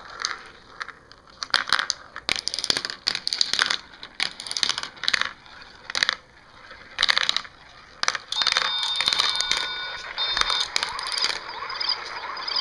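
Steel marbles clicking and clattering down the plastic tracks of a marble run, in quick runs of knocks. About eight seconds in this changes to a steady rolling whir as the marbles circle a plastic funnel bowl.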